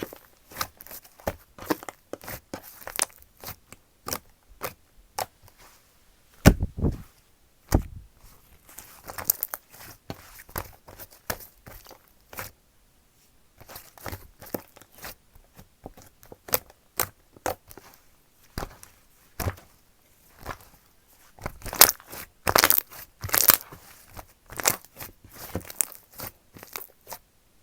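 Pink slime being stretched, pressed and poked by hand, giving irregular sticky clicks and pops of trapped air, with a louder cluster of pops about six seconds in and again near the end.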